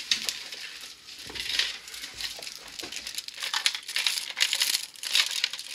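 Crinkling and rustling handling noise with many scattered clicks as a VHS videocassette is handled close to the microphone.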